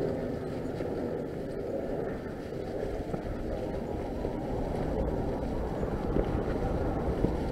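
Norco Fluid FS3 full-suspension mountain bike rolling over a leaf-covered dirt singletrack: a steady, low rumble of the tyres over the ground and dry leaves, with a few small knocks from the bike on the trail.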